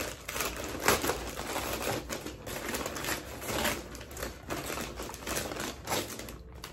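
Takeout food bag crinkling and rustling as it is opened and rummaged through, with irregular sharp crackles, the loudest about a second in.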